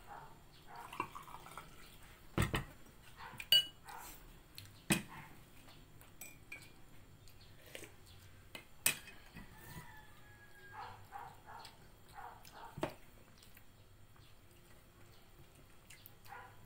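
Dishes and spoons clinking and knocking on a table during a meal: about five sharp knocks spread out, with quieter clatter between.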